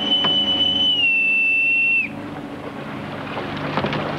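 Boatswain's call (bosun's pipe) blown in one long high note that steps down slightly about a second in and ends with a short falling flick about two seconds in: the call piping an officer aboard. Afterwards a quieter background hiss.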